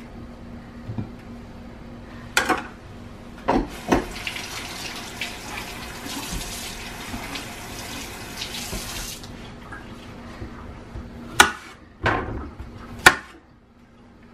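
Kitchen faucet running into the sink for about five seconds, starting about four seconds in. Before and after it, a few sharp knocks of a kitchen knife on a cutting board.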